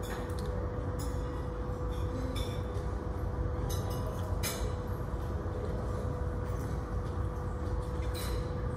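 Steady low rumble of airport apron noise, with a constant hum and a few faint high clinks scattered through it.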